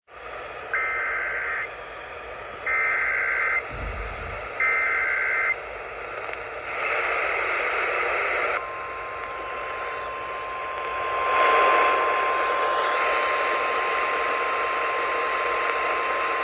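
Emergency Alert System activation received over a hissing radio: three one-second bursts of the two-pitch data screech of the alert header, about a second apart, then a single steady alarm tone that starts about nine seconds in and holds. This marks the start of a National Weather Service warning broadcast, here a flash flood warning.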